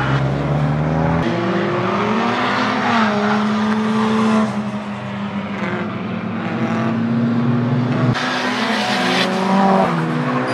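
Nissan Silvia S14 drift car's engine revving, its pitch rising and falling as it slides through corners, with tyre noise, changing abruptly about a second in and again near eight seconds as the shot cuts.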